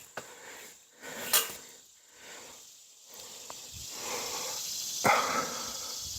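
A man breathing hard and noisily, winded from climbing into a ladder deer stand, with a short sharp knock about five seconds in.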